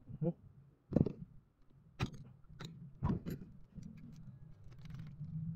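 Sharp plastic-and-metal clicks and knocks from a Kia Soul seat-belt retractor being handled and pried apart, about six in the first three and a half seconds, then fainter small ticks; the retractor is being dismantled to free its locked belt.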